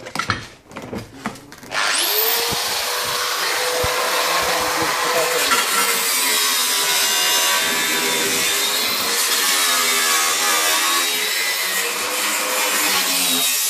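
Angle grinder spinning up about two seconds in after a few knocks, then cutting steadily through the steel of a BMW E38's roof pillar with a steady whine.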